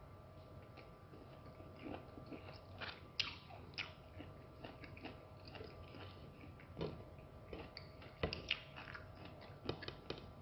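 Faint wet chewing and sucking on a raw lemon wedge: scattered soft mouth smacks and clicks.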